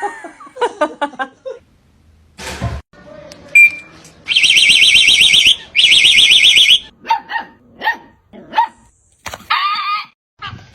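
A dog barking in short, separate barks, with a loud, high-pitched, rapidly pulsing trill heard twice for about a second each in the middle.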